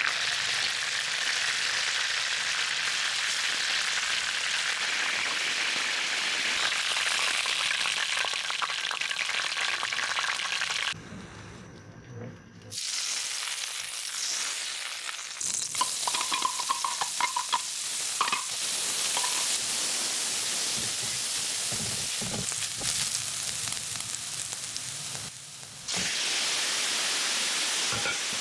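Chicken pieces sizzling as they fry in hot oil in a wok, with utensils scraping and clicking against the pan. The sizzle drops away briefly twice, once about a third of the way in and once near the end.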